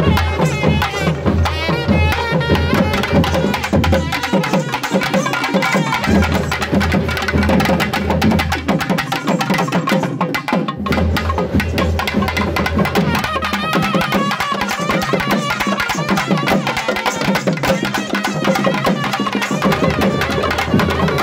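Music with drums and a heavy bass line, the bass dropping out and returning several times.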